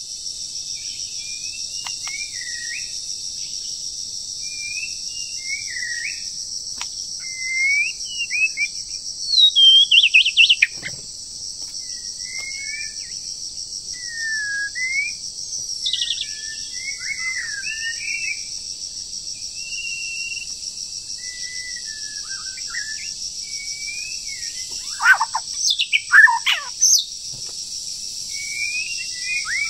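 White-rumped shama singing a run of short, varied whistled phrases, with a few louder sweeping calls about ten seconds in and again around 25 seconds in. A steady high insect drone runs behind the song.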